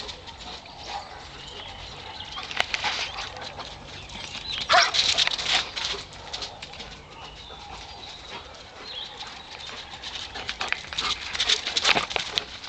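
A dog running laps on bare dirt: quick scuffing and patting of paws in three bursts, loudest when it passes close, at about two and a half seconds, around five seconds and near the end.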